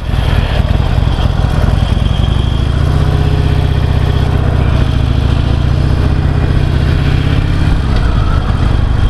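2009 Harley-Davidson Sportster XL883C's air-cooled 883 cc V-twin on its stock exhaust, running as the bike pulls away at low speed, with a change in the engine note near the end.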